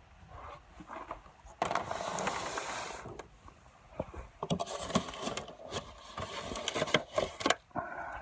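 Handling noises: a scrape lasting over a second, then a run of irregular clicks and knocks.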